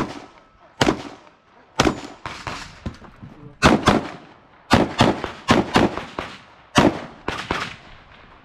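Glock 19 9mm pistol fired in rapid strings: more than a dozen sharp shots, many in quick pairs, with short pauses between groups, each shot followed by a brief ringing tail.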